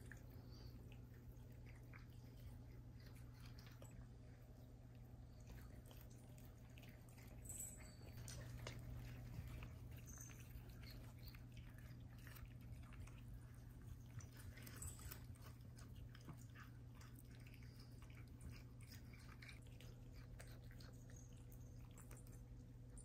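Cats chewing and tearing at blades of potted cat grass: faint, irregular crunchy clicks over a steady low hum.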